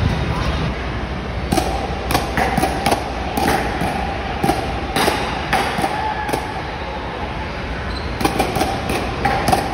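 Irregular sharp pops and knocks, about a dozen in all, from play in a ball-blaster arena, over a steady hum.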